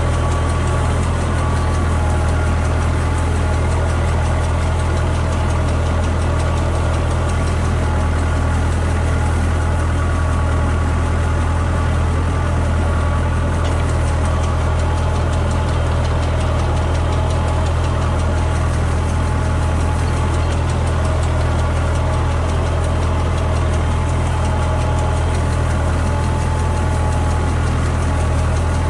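Tractor engine running steadily as it drives through the rows, with the PTO-driven airblast sprayer's fan running behind it: a constant deep drone with a few held higher tones that never changes.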